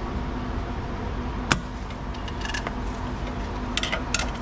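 Hand tools working on metal: one sharp metallic click, then several light clinks and ticks from vise-grip locking pliers clamped on a stuck fastener at a car's front wheel hub, and a screwdriver brought against it. All of this sits over a steady low background noise.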